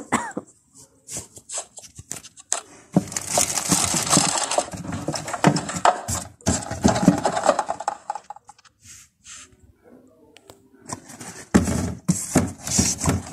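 Plastic drink sachets and foil packets rustling and crinkling as they are handled and packed into a plastic basket on a cupboard shelf, with knocks as boxes and packets are set down.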